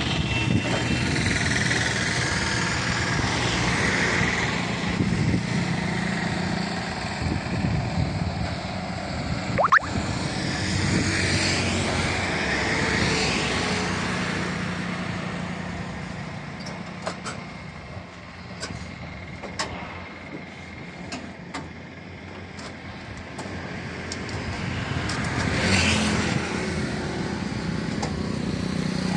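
Road traffic passing: vehicles rise and fade three times over a steady hum. In the quieter middle stretch come scattered sharp clicks.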